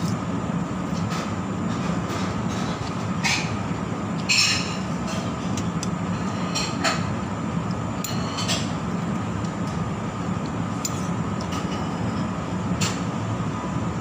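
Eating sounds from a mukbang of soto ayam: noodles and broth being slurped and chewed, with a metal spoon clinking against a ceramic bowl, in a handful of short sounds about four and a half seconds in and again near seven, eight and a half and thirteen seconds. Under them runs a steady low machine hum.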